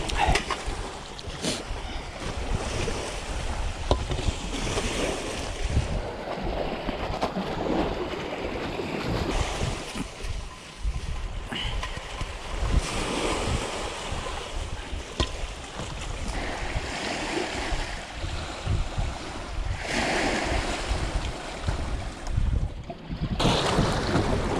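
Sea waves washing on the shore, with wind buffeting the microphone and a low rumble; the wash swells and eases every few seconds.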